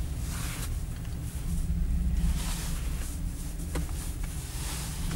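Wind rumbling on the microphone of a rider on a chairlift: a steady, uneven low rumble with hissing gusts that swell and fade about every two seconds.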